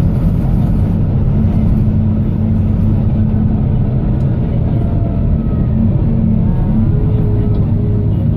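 Diesel engine of a Volvo B9TL double-decker bus running under load, heard from on board as a steady drone. Its pitch steps up about a second in as the bus pulls harder.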